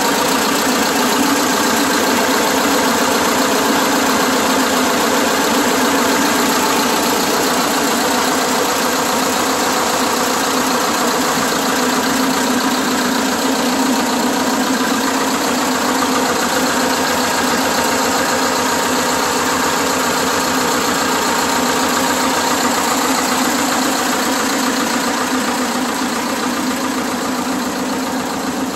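Vladimirec T25A1 tractor's two-cylinder diesel engine running steadily at an even speed, a little fainter near the end.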